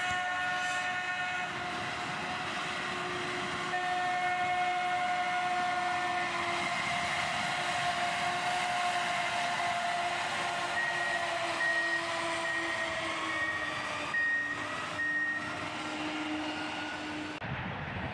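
Railroad ballast tamper, a maintenance-of-way machine, passing with a steady pitched drone that sags in pitch as it goes by. A run of short high beeps sounds about two-thirds of the way through.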